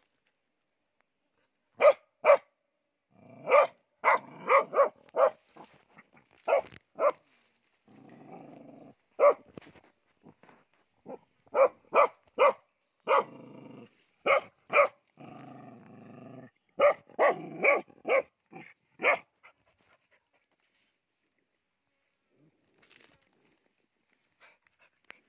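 Small dog barking excitedly in quick runs of short barks, with low growls in between, while it digs into an animal's burrow; the barking stops about three-quarters of the way through.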